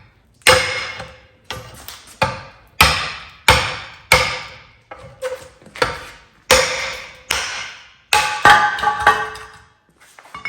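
Hammer blows on the metal parts of a Ford 9-inch rear axle: a run of about a dozen strikes at an uneven pace, each one ringing briefly.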